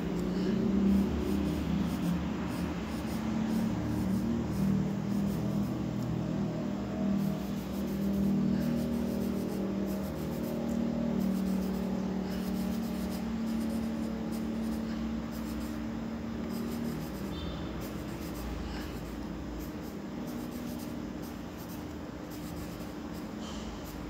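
Pencil scratching on drawing paper in many short, quick strokes, over a low droning hum that eases off in the second half.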